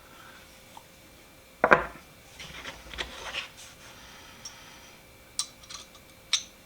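Small metal ratchet parts handled and fitted together on a workbench: a sharp knock about 1.7 s in, then light scraping and a few scattered clicks.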